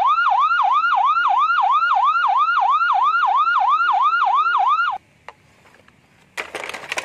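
Ambulance siren wailing in fast repeated sweeps, about three a second, each falling in pitch. It cuts off suddenly about five seconds in. Near the end comes a short clatter of plastic toy vehicles being set down.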